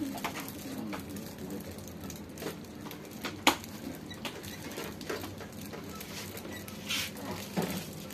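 Shop background noise: a low steady hum with faint distant voices and scattered sharp clicks and taps, the loudest about three and a half seconds in.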